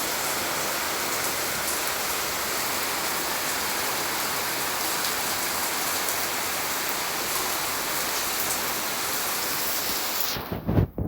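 Steady heavy rain, an even hiss that cuts off abruptly near the end, followed by a few loud low thumps.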